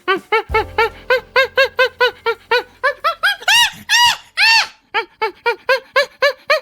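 An animal's rapid squeaking calls, about five short squeaks a second, each rising and falling in pitch, with a few longer, drawn-out squeaks about halfway through.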